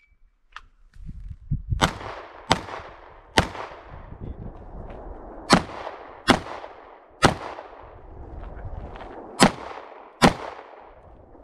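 Pistol shots in a practical-shooting course of fire: eight shots spaced well under a second apart, in three bursts of three, three and two, with pauses of about two seconds between bursts.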